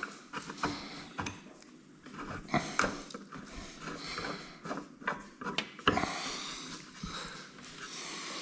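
Scattered light clicks and knocks of a wooden chair being taken apart, with its screws and an Allen key handled.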